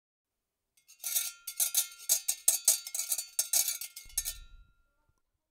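Rapid metallic clinking, about five strikes a second for nearly four seconds, with a steady high ringing tone beneath it, like a small bell or cowbell being shaken or struck. A brief low thump comes near the end.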